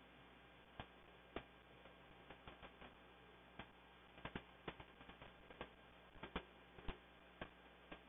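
Faint, irregular clicks and taps of a house finch cracking sunflower seeds and pecking against a clear plastic window feeder tray, over a low steady hum. The clicks come unevenly, a few close together, the loudest near the end.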